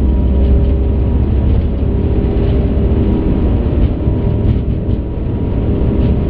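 Airbus A380 on its takeoff roll at takeoff thrust, heard from inside the cockpit: a loud, steady low rumble of engines and wheels on the runway as the aircraft accelerates between V1 and rotation.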